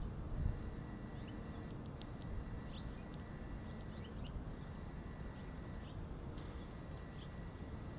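Small birds chirping in short, high, scattered calls over a steady low rumble. A faint steady high tone runs underneath.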